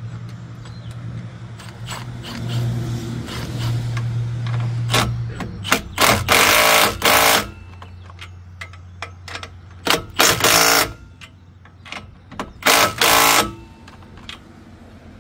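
Cordless power driver working on the exhaust pipe clamp. The motor whirs steadily for the first few seconds, then there are three loud, rattling bursts of about a second each as the tool bites and tightens the fastener.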